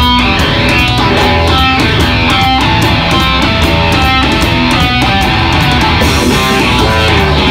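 Live heavy rock instrumental: an electric guitar playing loud riffs over a full drum kit, with a cymbal hiss swelling near the end.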